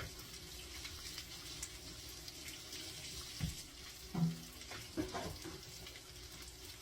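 Kitchen tap running steadily while hands are washed at the sink, with a few light knocks in the middle.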